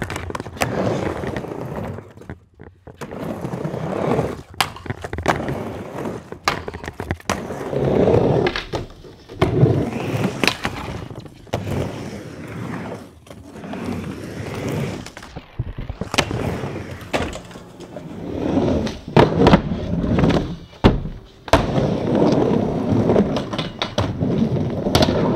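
Skateboard wheels rolling back and forth on a wooden mini ramp, the sound swelling and fading with each pass. Sharp clacks and knocks come as the board and trucks hit the coping and land on the ramp.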